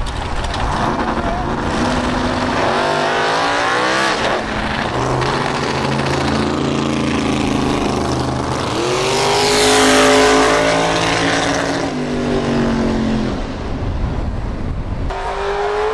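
Two drag-race cars running hard down the strip, their engines revving up through the gears. They are loudest as they pass about ten seconds in, then the sound fades as they pull away.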